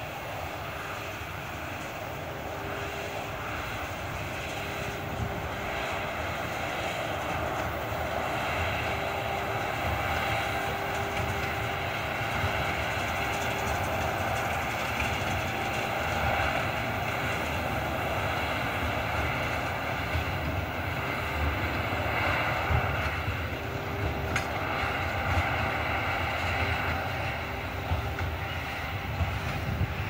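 John Deere 7530 tractor running steadily while pulling a Massey Ferguson 185 small square baler that is baling hay, the machinery growing gradually louder as it comes closer.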